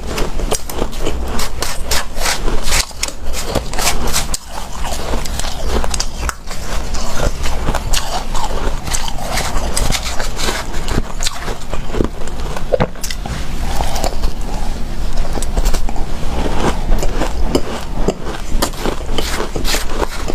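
Close-miked biting and chewing of hard, snow-like powdered ice: a dense, irregular run of crunches and crackles with no break.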